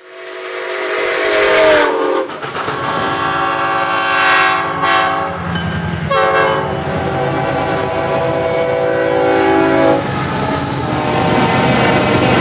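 Diesel locomotive's multi-chime air horn sounding three long blasts as a freight train approaches, the last lasting about four seconds. After the horn stops, the steady rumble of the train passing with wheels on the rails.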